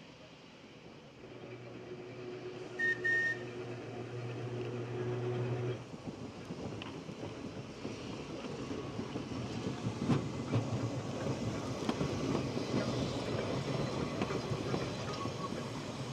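Manx Electric Railway tram approaching and passing close: a low steady hum that stops about six seconds in, two short high beeps around three seconds in, then the rumble and clatter of its wheels on the rails, growing louder as it goes by.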